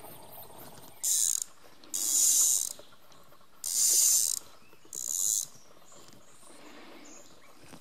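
Fly reel's click-and-pawl ratchet buzzing in four short bursts as line is pulled off the reel.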